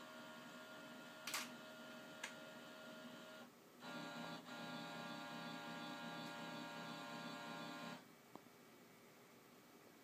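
Scanner running: a steady motor hum with two short clicks. About four seconds in a louder steady whir starts, lasts about four seconds and stops suddenly, leaving a quieter hum with one faint click.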